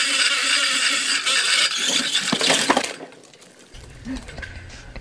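Rope running out fast through the derrick's pulley as a heavy pipe percussion drill bit falls down the well casing: a loud hiss with a faint steady whine. It ends in a few clinks and rattles about three seconds in.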